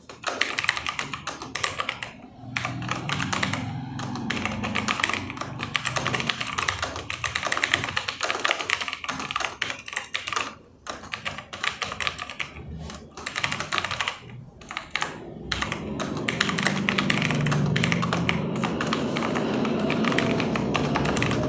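Fast touch-typing on a computer keyboard, a rapid, continuous patter of key clicks at roughly 65 words per minute, broken by a few brief pauses.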